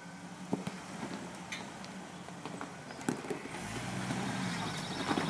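Jeep Wrangler engine running at low speed as it crawls down a steep rocky slope, with scattered knocks and clicks of tyres and rock. The engine grows louder as it nears, and a deeper engine note comes in about two-thirds of the way through.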